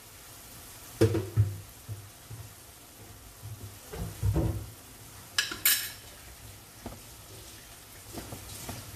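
A cooking utensil knocking and scraping against a pan while ground pork is stirred, over a faint steady sizzle, with a few sharp knocks and two bright clinks about halfway through.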